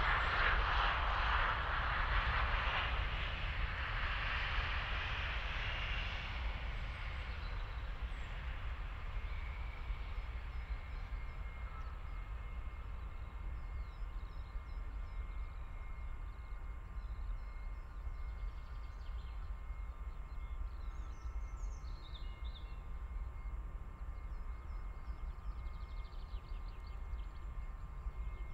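Embraer E190's twin turbofan engines roaring as the jet lands and slows on the runway. The roar fades over the first six or seven seconds, leaving a steady engine whine over a low rumble as the aircraft rolls away.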